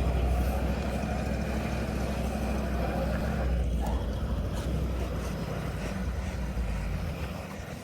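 A heavy truck engine, likely the concrete delivery truck's diesel, running steadily with a low rumble that eases off near the end.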